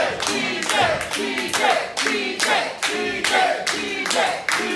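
Wrestling crowd chanting in unison and clapping in a steady rhythm, about three claps a second.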